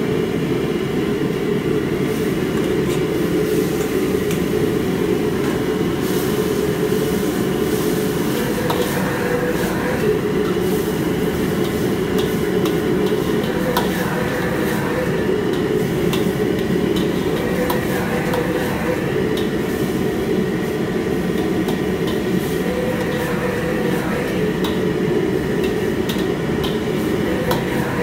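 Commercial gas wok burner running with a steady loud rumble, while a metal ladle scrapes and clanks against the wok as tomato and scrambled egg are stir-fried and tossed.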